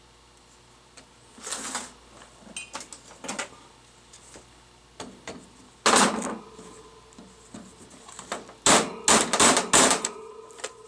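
Sharp metallic knocks and clatters as a drilled-out rivet is worked free of a car door's inside handle mount. The knocks are irregular at first, with a strong one about halfway, then a quick run of four near the end.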